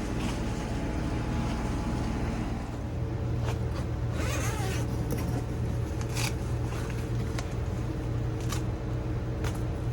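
Steady low machine hum with a few faint steady tones, and brief rustling and clicking sounds of handling over it, the longest rustle a little under halfway through.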